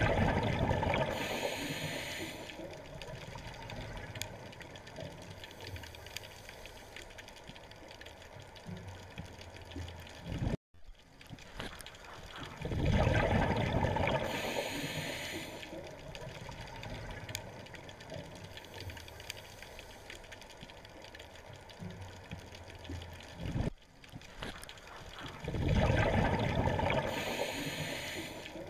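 Underwater recording of a scuba diver's exhaled bubbles from the regulator, gurgling in three bursts of about two seconds each, roughly thirteen seconds apart, with quieter steady water noise between. The sound cuts out for an instant twice.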